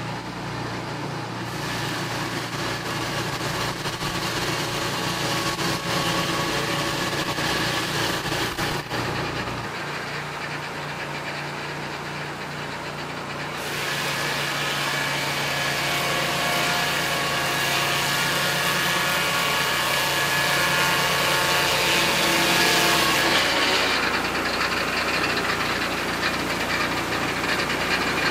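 Peterson Automated Swingblade Mill running, its engine driving the circular saw blade as it cuts through a log. The hiss of the blade in the wood comes and goes as it enters and leaves the cut, loudest between about fourteen and twenty-four seconds in.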